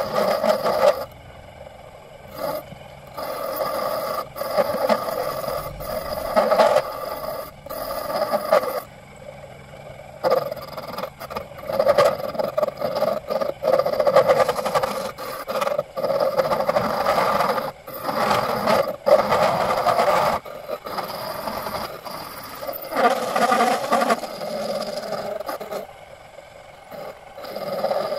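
Repeated hand scraping strokes on metal, each a second or two long with brief pauses between them, carrying a steady ringing tone from the workpiece.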